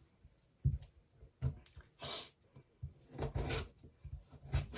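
Kitchen knife cutting daikon radish on a cutting board: a few soft thuds as the blade meets the board, with short scraping and rustling sounds between them and a sharp knock near the end.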